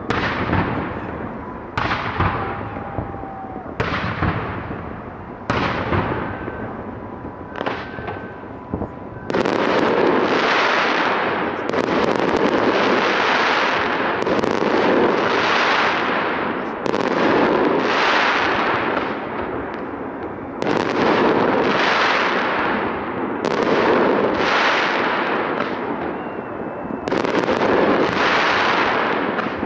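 Fireworks display: sharp booms of bursting shells about two seconds apart. From about nine seconds in they give way to a dense, continuous crackle of many bursts, swelling and easing every couple of seconds.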